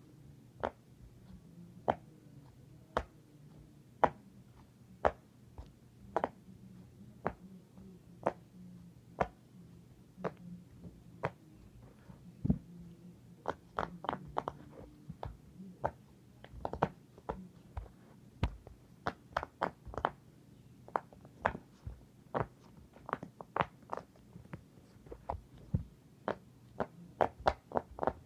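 Silicone pop-it fidget toy having its bubbles pressed one by one, each giving a short sharp pop. The pops come about once a second at first. From about halfway they come faster and less evenly, some in quick little runs.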